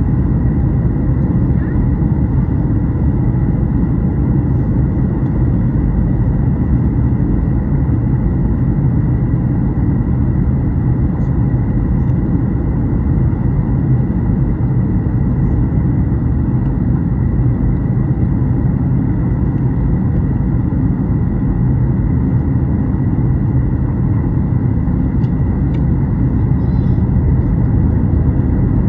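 Steady cabin roar of a Boeing 737 MAX 8 in flight: its CFM LEAP-1B turbofans and the airflow over the fuselage make a deep, unchanging rumble with a faint high whine.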